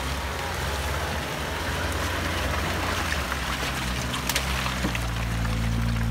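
Lifted Suzuki Samurai's engine running under load as it crawls through deep mud, with wet mud and water sloshing around the tyres. The engine note steadies and grows louder in the second half as the jeep passes close by, with a few sharp clicks about four seconds in.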